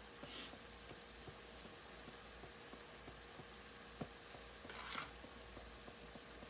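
Faint sizzling of a beef and broccoli stir-fry in a skillet, with many small scattered crackles and pops. A thin steady hum runs under it, and two brief soft hisses come near the start and about five seconds in.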